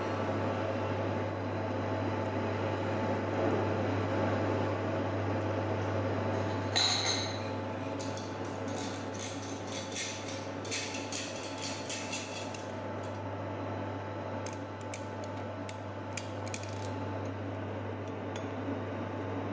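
Dishes and cutlery clinking: one sharp clink about seven seconds in, then a string of lighter clicks and clinks, over a steady low hum and background noise.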